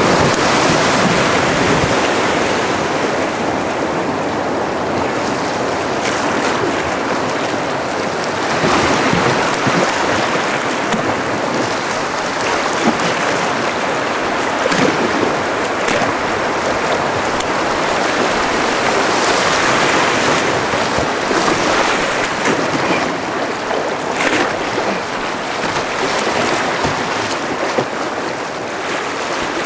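River rapids rushing and churning around a canoe running downstream through whitewater. It is a loud, steady rush with a few brief sharper splashes.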